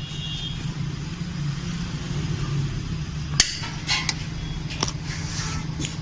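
A steady low hum, then, from about three and a half seconds in, several sharp metallic clicks and knocks from hands and tools working on the engine's exposed timing chain and cam sprockets.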